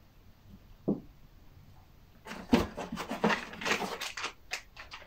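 A single knock about a second in as an item is set down on a table. From about two seconds on, dense, irregular crackling and clattering as hands rummage through the packaging in a cardboard box.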